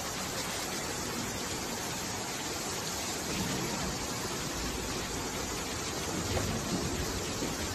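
Floodwater torrent rushing past bridge piers: a steady, hissing rush of turbulent water, swelling briefly with deeper surges about three and a half and six and a half seconds in.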